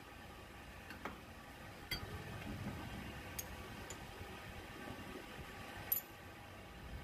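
Light metal clicks and taps as a flat metal piece is fitted into a homemade hinge-bending jig clamped in a bench vise: about five sharp ticks, the loudest near the end, over a faint steady hum.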